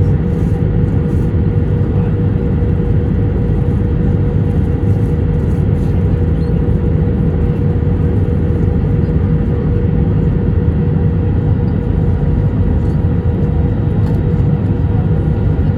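Steady cabin noise of an Airbus A321 airliner in flight on approach: engine and airflow noise, deep and even, with a faint steady hum on top.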